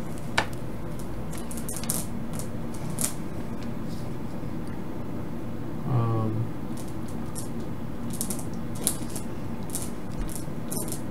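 Light clicks and taps of a USB cable and its plug being handled, scattered irregularly, over a steady low hum.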